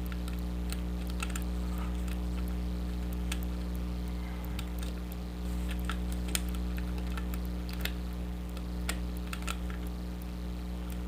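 Irregular light metallic clicks and scrapes from a thin steel hook pick and tension wrench working the pin tumblers of a lock cylinder, as in single-pin picking. A steady low hum runs underneath.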